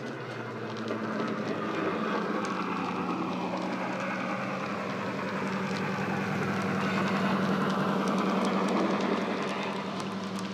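A DCC sound decoder in a Bachmann OO-gauge Class 55 Deltic model plays the Deltic's diesel engine sound through an EM2 speaker as the model runs past under power. It grows louder as the loco approaches, is loudest a couple of seconds before the end, then eases off. Light clicking from the wheels on the track comes through near the end.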